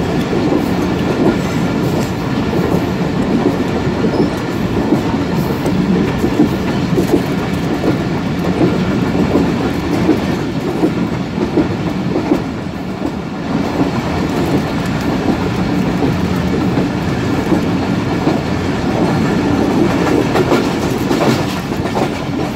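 Passenger train running at speed, the steady noise of its wheels on the rails heard from inside the carriage; it eases briefly a little past halfway through.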